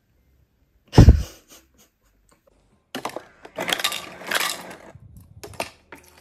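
A sharp thump about a second in, then ice cubes from a refrigerator door dispenser clattering into a plastic tumbler in a few runs, with a last short burst near the end.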